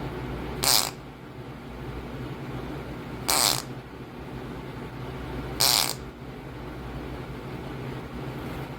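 A bird gives a short, harsh, raspy call three times, about two and a half seconds apart, over a steady low hum.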